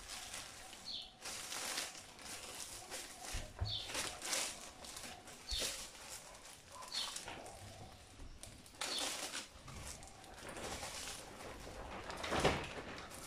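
Thin heat-shrink plastic film crinkling and rustling in irregular bursts as a wooden board is slid into the bag and the film is smoothed around it, the loudest rustle near the end. Short high chirps recur every second or two.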